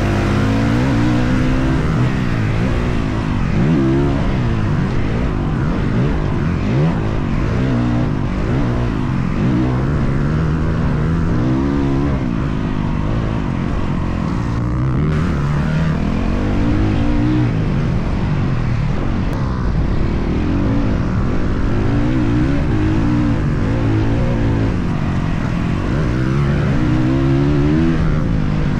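Dirt bike engine revving up and backing off over and over, its pitch climbing and dropping every couple of seconds as the rider works the throttle and gears.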